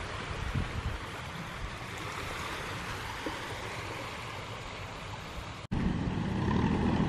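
Small waves washing onto a shallow sandy shore, with wind rumbling on the microphone. The sound cuts off abruptly near the end and comes back with a louder low wind rumble.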